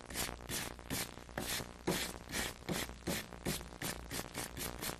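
Wire brush scrubbing scorched white pine in quick back-and-forth strokes, about three or four a second. The brushing wears away the charred softer wood and leaves the hard grain raised.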